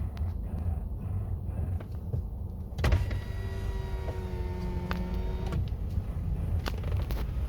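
Front right suspension of a 2013 Honda Accord squeaking as the steering wheel is turned: a click, then one drawn-out, slightly falling squeak lasting a few seconds, over a low steady rumble. The squeak persists despite a new lower arm, lower ball joints, strut mount and tie rods.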